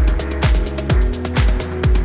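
Background music with a steady kick-drum beat, about two beats a second, over held synth tones.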